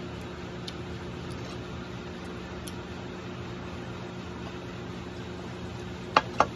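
A steady low mechanical hum with a faint hiss. Two sharp knocks, close together near the end, are the loudest sounds.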